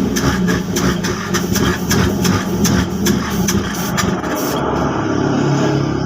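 Engine running with a regular ticking of about four to five beats a second that stops about four and a half seconds in, after which it runs more evenly.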